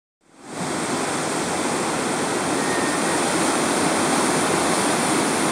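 Whitewater rapids rushing, a steady, even noise that fades in over the first half second.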